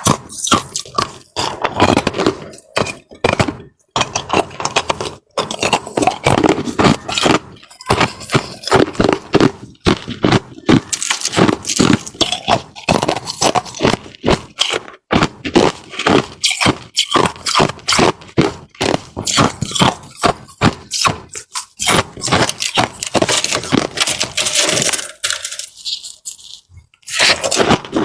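Close-up crunching of frozen ice being bitten and chewed: a fast, irregular run of loud cracks and crunches, with a short pause a few seconds before the end.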